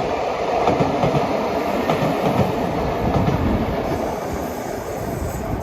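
A train passing, a steady rumble of wheels on the rails.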